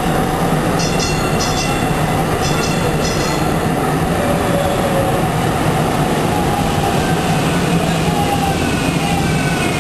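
DART Kinkisharyo light rail vehicle running past close by, a steady loud rumble of wheels on rail with a constant low hum. Near the end a rising whine sets in as a train picks up speed.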